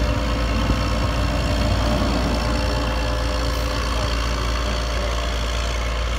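Caterpillar motor grader's diesel engine running with a steady, deep drone as the machine blades cold-mix asphalt along the road, growing slightly fainter as it pulls away.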